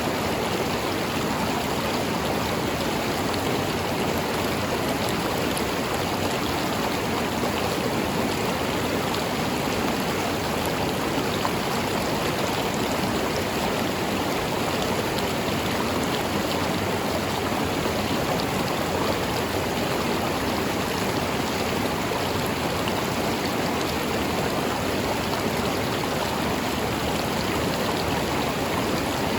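River water flowing over rocks, a steady, even rush with light gurgling.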